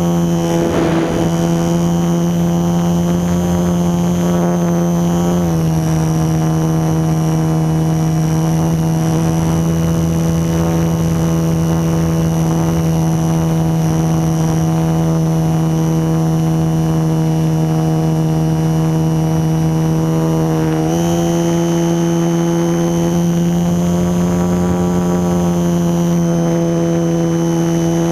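Electric motor and propeller of a HobbyZone Super Cub LP radio-controlled model airplane in flight: a steady whine. Its pitch steps down slightly about five seconds in and climbs back up about twenty seconds in.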